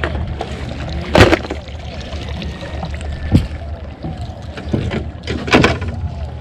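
A boat motor running steadily at low speed, with three short, sharp sounds on board or in the water about a second, three seconds and five and a half seconds in; the first is the loudest.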